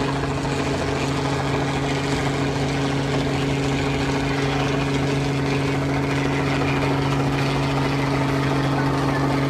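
Steady engine drone holding one low, even pitch, with a constant hiss of wind or water noise behind it.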